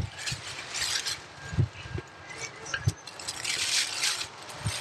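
A cloth rubbing and wiping over a motorcycle's engine and frame parts, a scuffing rustle in short strokes, with several dull knocks at irregular intervals.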